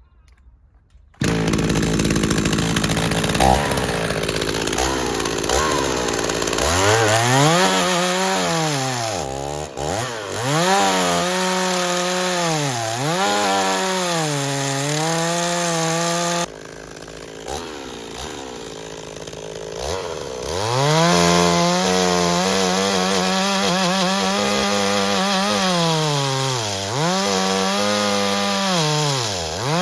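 Chainsaw cutting wood, its engine pitch dropping and rising again and again as the chain bogs down under load in the cut. It starts suddenly about a second in.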